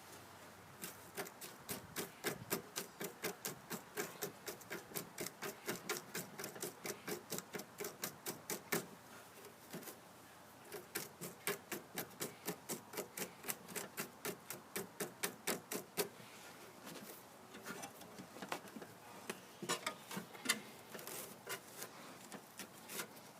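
A hand tool picking and scraping at compacted debris wrapped around a lawn mower's drive axle. Short, sharp strokes come about three to four a second in two long runs with a brief pause between, then turn sparse and irregular near the end.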